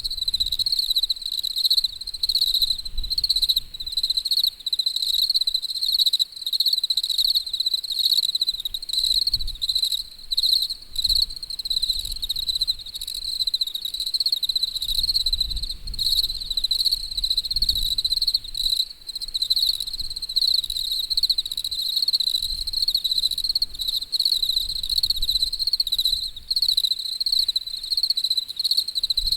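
Insects chirping in a steady, high, pulsing trill that dips briefly every second or two, with a faint low rumble beneath.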